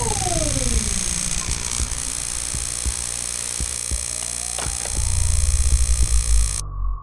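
Experimental electronic soundtrack: a steady hiss with scattered clicks, two tones falling in pitch in the first second or so, and a fast low throbbing pulse from about five seconds in. The hiss cuts off suddenly shortly before a steady tone is left on its own.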